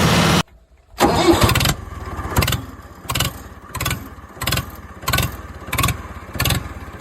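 A vehicle engine starting: a loud burst about a second in, then slow, even chugging of about three beats every two seconds.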